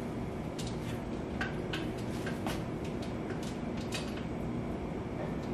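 Light metallic clicks and taps as the wing-nut clamps on a pressure canner's lid are turned and snugged down, about eight small clicks over the first four seconds, over a steady low hum.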